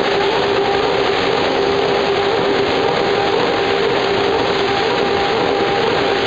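Steady, loud machinery din of a running corrugated board production line: a constant noisy rush with a steady hum through it, unchanging throughout.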